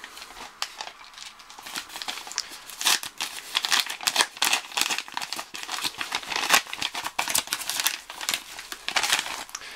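Plastic and paper packaging crinkling and tearing as it is pulled open by hand to get a DVD out: a run of quick, irregular crackles and rustles.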